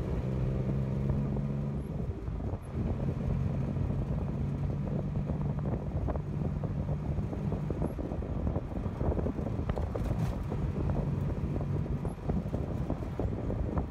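Tuk-tuk engine running at a steady speed as the three-wheeler drives along, with rattling from the open cab and wind noise.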